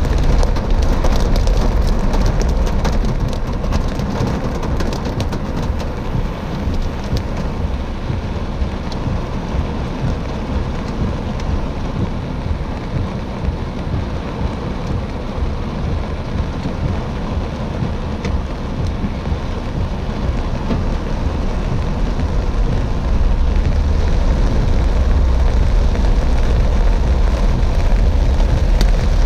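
Heavy rain pelting a moving car's windshield and roof, over a steady low rumble of road and wind noise. The downpour grows louder about three-quarters of the way through.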